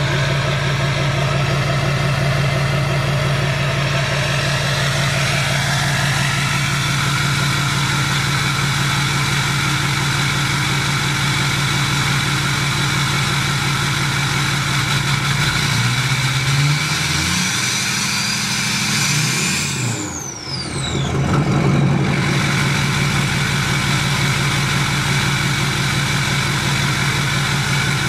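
2004 Duramax LLY 6.6-litre V8 turbodiesel idling steadily out of its 5-inch exhaust and 6-inch AR-15-style side-exit tip. A little over halfway through it is revved once: the engine note climbs with a rising high whistle, then drops back to idle as the whistle falls away.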